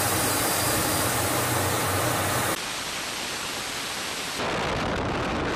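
In-flight aircraft noise: a steady rushing of airflow and engine drone, changing abruptly about two and a half seconds in and again a little past four seconds as the footage cuts.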